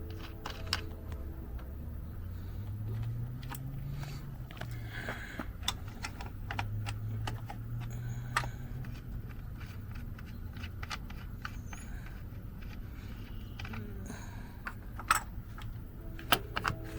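Scattered light clicks and rattles over a steady low hum, with two sharper knocks near the end.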